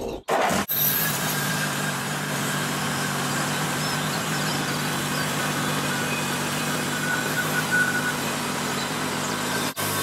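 Wood-Mizer LT30 portable band sawmill with its 18 hp engine running steadily under load as the band blade cuts a board from a burr oak log.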